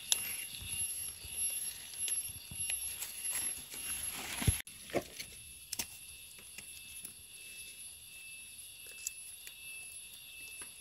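Forest insects trilling steadily at a high pitch, with rustling and light knocks from someone moving through leaf litter and handling things for the first few seconds. The rustling stops abruptly about halfway through, leaving the insect trill.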